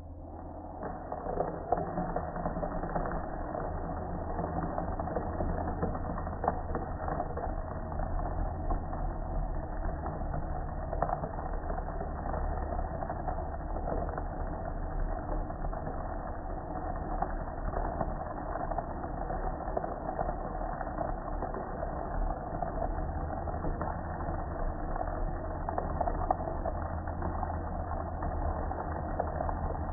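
A jet of water spraying steadily onto a gas grill, splashing and drumming on the metal lid and control panel as the soap is rinsed off.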